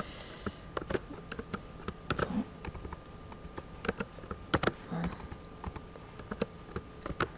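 Computer keyboard keys tapped in irregular short runs of clicks, as a text field is edited.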